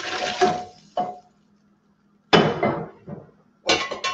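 Liquid poured from a cast iron skillet splashing into a stainless steel pressure cooker pot, with a metal clink about a second in. A little over two seconds in, a loud clank of cookware set down on the stove grate, followed by a few lighter clinks near the end.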